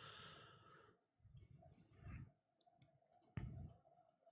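Near silence with a few faint computer mouse clicks, the clearest about three and a half seconds in.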